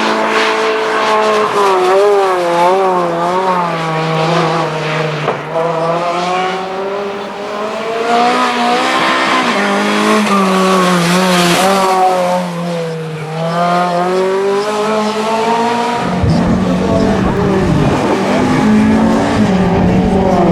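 A racing touring car's engine at full throttle, its pitch rising and falling repeatedly as it accelerates and shifts, with a quick wavering of the revs early on. About three-quarters of the way in, a deep rumble joins as a car comes close.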